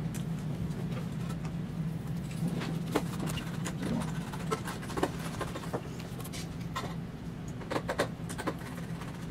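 Scattered light clicks and rustles of hands handling insulated wires as they are twisted and fitted into a stepper-driver terminal, over a steady low hum.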